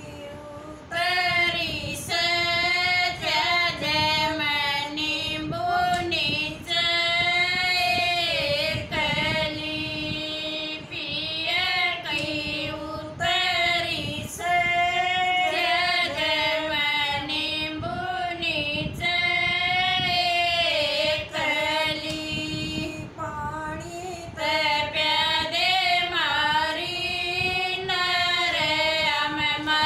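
Three women singing a Haryanvi folk song together in unison, without instruments, in long held phrases with wavering notes and short pauses for breath between them.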